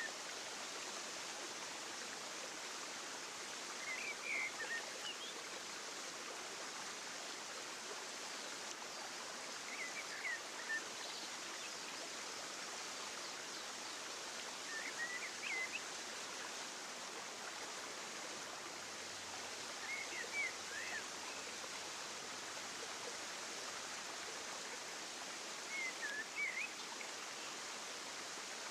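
Steady rushing hiss like running water, with a short burst of bird chirps about every five to six seconds, five times in all.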